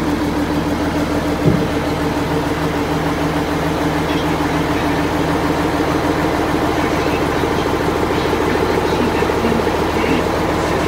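Mack Super-Liner dump truck's Econodyne diesel engine idling steadily, with one short knock about a second and a half in.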